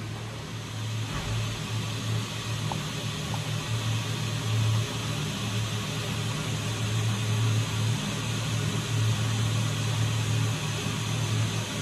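Steady low hum with an even hiss, the sound of a fan running, the hum wavering in strength.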